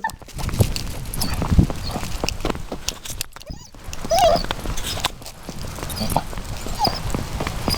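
Footsteps on a walk outdoors, with a steady low wind rumble on the microphone. A puppy gives two short whines, about four and seven seconds in.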